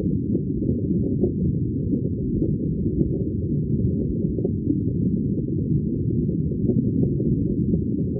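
Steady, muffled underwater water noise with rising air bubbles, heard through a waterproof camera housing: a dull, even rumble with no high sounds.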